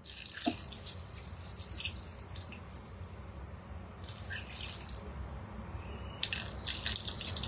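Water poured from a jug into a metal cooking bowl of black beans and butternut squash, splashing in three pours: a long one at the start, a short one about four seconds in, and another near the end.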